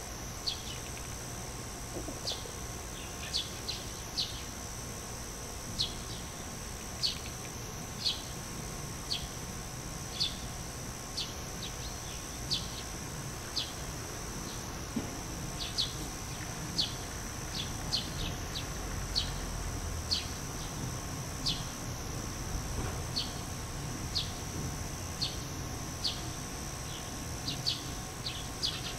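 Small wild birds chirping: many short, high chirps at irregular intervals, one or two a second, over a faint steady high-pitched whine.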